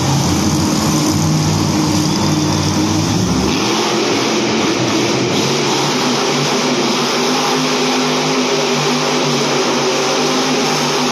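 Monster truck engine running loud and steady. Its deepest rumble drops away about three and a half seconds in, while the engine tone carries on.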